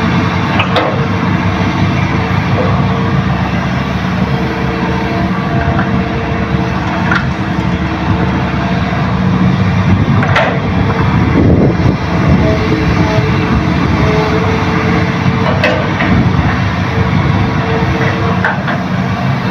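Hitachi hydraulic excavators' diesel engines running steadily under working load as they dig and load soil, with a few sharp knocks from the machinery or bucket.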